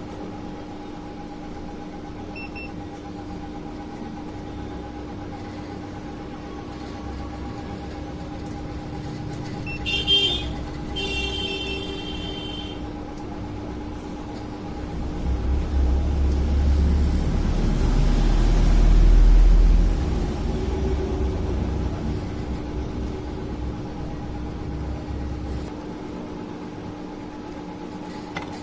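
Road traffic: a vehicle horn toots briefly about ten seconds in, then a low vehicle rumble swells, peaks near twenty seconds in and fades away, over a steady electrical hum.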